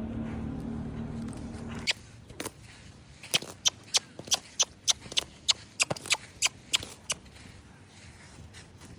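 A low steady hum for the first two seconds. Then a fast, even run of sharp tongue clicks, about three a second for some five seconds: a handler clucking to urge a horse forward on the lunge line.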